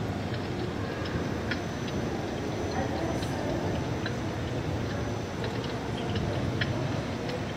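Steady indoor ambience: a low murmur of distant voices over an even background noise, with scattered faint ticks.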